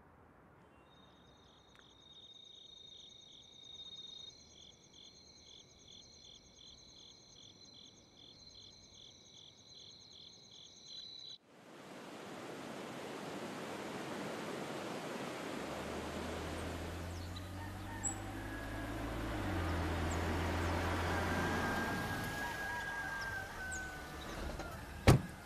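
Faint night ambience of insects chirring in steady high pulsing tones. After about 11 seconds it cuts to the loud wash of sea surf on a rocky shore with a low rumble, and a sharp click comes near the end.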